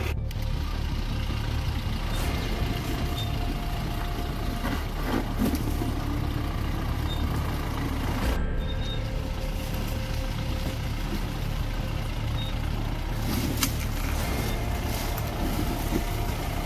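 Mahindra Bolero's engine running steady and low while crawling over a rough off-road track, with a few brief knocks.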